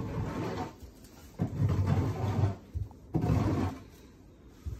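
Young cattle making low, rough vocal sounds, three bursts of about a second each.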